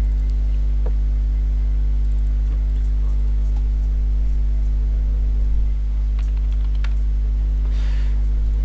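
Steady electrical mains hum, a low buzz with a stack of even overtones, picked up by the recording setup, with a few faint mouse clicks over it.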